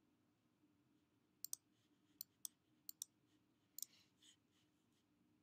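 Faint computer mouse clicks: about eight short, sharp clicks, several in quick pairs, between about a second and a half and four seconds in.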